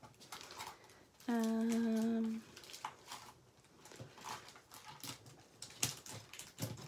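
A woman's voice humming a steady, level 'mmm' for about a second, with light clicks and rattles of clear plastic storage cases being handled before and after it.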